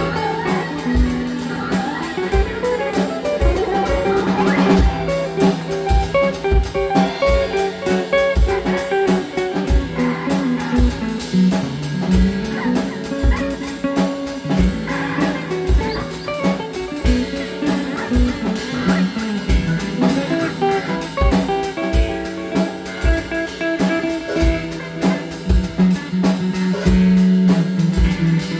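Live instrumental band music: electric guitar over a drum kit keeping a steady kick-drum beat, with a low didgeridoo drone underneath that slides in pitch at times.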